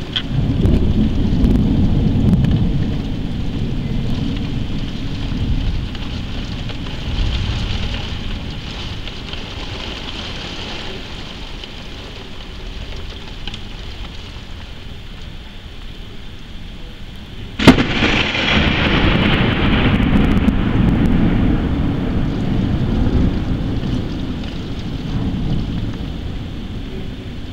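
Heavy rain falling through a thunderstorm, with low thunder rumbling on and off. About two-thirds of the way through, a close lightning strike gives a sudden sharp thunderclap, the loudest sound, which breaks into a long rolling rumble.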